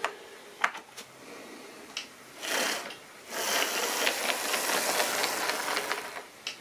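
Lima H0 model diesel locomotive running on track, its small electric motor and wheels giving a rattling, ticking run that gets louder for about three seconds from halfway through as it passes close by, after a few sharp clicks at the start. The locomotive is running fairly well on wheels that are still dirty and uncleaned.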